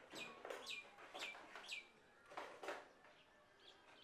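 Faint bird calls: four short chirps that each fall in pitch, about half a second apart, then two broader calls a little past halfway.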